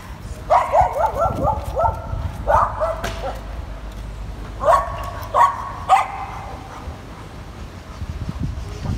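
A dog giving short, high yips and barks: a quick run of several about half a second in, a few more around three seconds, and three sharper ones around five to six seconds.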